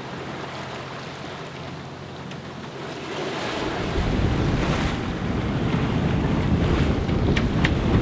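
Wind and sea noise aboard a sailboat under way, with a steady low hum. About halfway through, a loud wind rumble on the microphone and the rush of water past the hull take over. Two short high squeaks come near the end.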